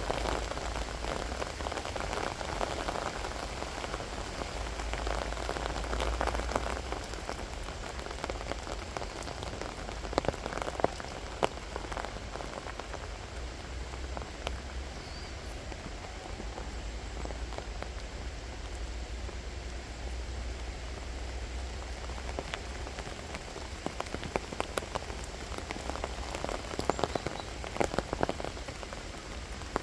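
Steady rain falling, a close patter of drops with scattered louder drips that cluster about ten seconds in and again near the end.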